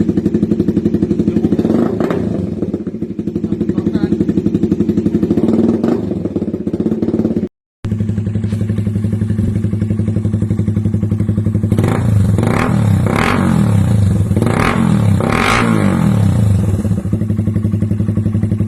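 Motorcycle with an aftermarket Daeng/Cha/Apido-style replica exhaust pipe idling steadily. Near the middle the sound cuts out briefly. In the second half the throttle is blipped about five times, each rev rising and falling back to idle.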